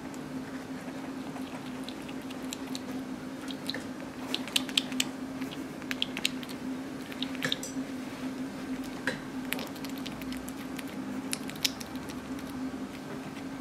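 A hedgehog chewing pieces of croissant: small, irregular wet clicks and smacks, thickest about a third of the way in, over a steady low hum.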